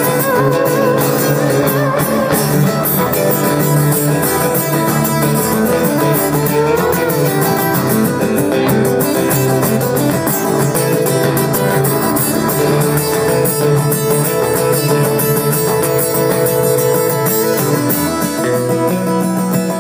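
A live band playing an instrumental passage of a song, led by guitar.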